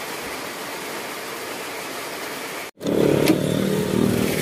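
A steady hiss, then, after an abrupt cut a little under three seconds in, a vehicle engine running with street traffic, much louder.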